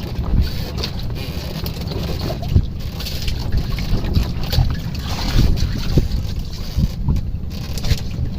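Wind buffeting the microphone, a steady low rumble with scattered small knocks and rustles.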